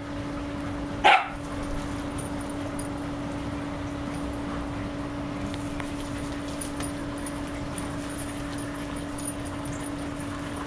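A shiba inu gives one short bark about a second in, over a steady low hum.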